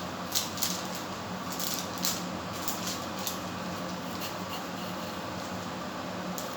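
Knife cutting into an eggplant: a handful of short crisp cuts or scrapes in the first three seconds and one more near the end, over a steady low hum.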